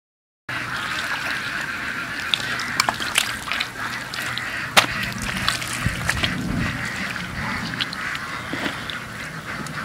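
Muddy pond water sloshing and splashing with scattered sharp clicks as a wader gropes with his hands along the bank for eels, over a steady background din.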